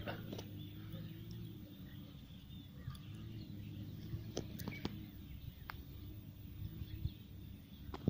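Quiet rural outdoor ambience: a steady low background noise with a faint hum, and a few faint short bird chirps around the middle.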